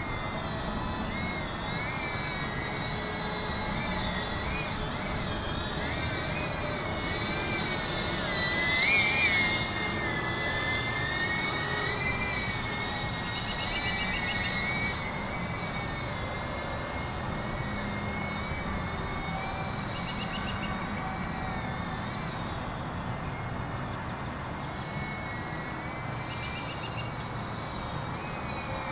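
Micro cinewhoop quadcopter's four tiny 1103 brushless motors and props whining in flight, the pitch wavering up and down with the throttle. It is loudest in a short burst of throttle about nine seconds in.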